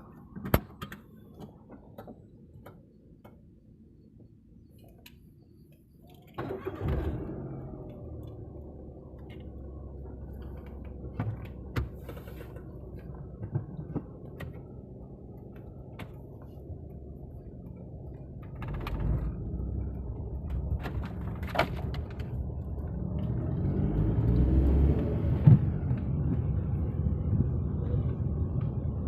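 Car engine starting about six seconds in, after a few clicks and a jingle of keys, then running steadily and growing louder in the last third.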